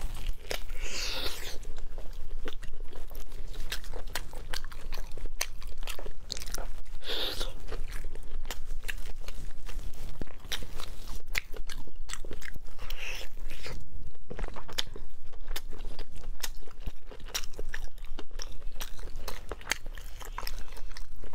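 Close-miked biting and chewing of a braised pork trotter, with dense sharp mouth clicks throughout and a few longer, noisier smacking or tearing sounds.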